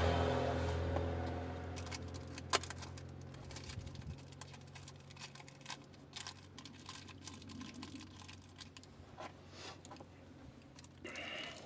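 A car engine running, its steady hum fading away over the first three to four seconds. Then scattered light clicks and taps follow, with one sharper click about two and a half seconds in and a short rasp near the end.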